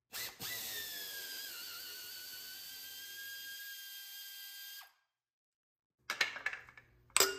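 Power drill spinning a 3/8-inch bolt out of a mower's hydro transaxle cover, its whine dropping a little in pitch in the first second or so, then holding steady before it stops. A second or so later come a few sharp knocks and clatter from the cover being worked loose, the loudest near the end.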